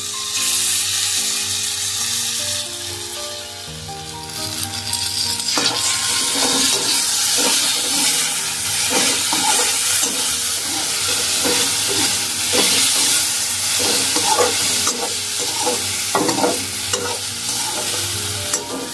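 Potato wedges frying and sizzling in a kadhai, stirred and scraped with a perforated metal spatula; the brisk scraping strokes begin about five seconds in.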